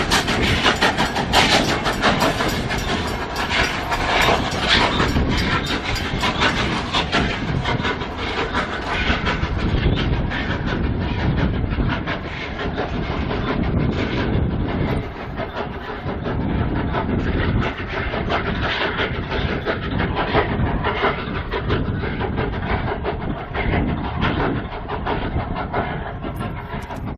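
Nevada Northern Railway train rolling on the rails, with a steady run of wheel clicks and rattling. The sharpest, highest part of the sound dies away after about eight seconds.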